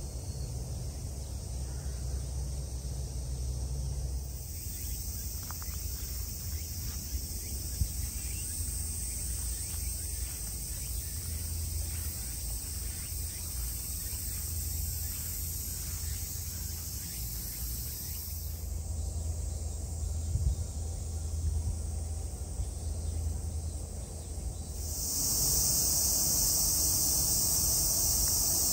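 Cicadas buzzing in the trees, a steady high-pitched drone that comes in a few seconds in, drops away about two-thirds through and returns louder near the end, over a low rumble.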